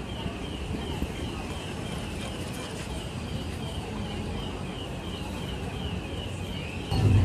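City street noise with a steady series of short, falling high chirps, about three a second, from an unseen source. Just before the end the sound cuts suddenly to a louder low rumble, as in a bus interior.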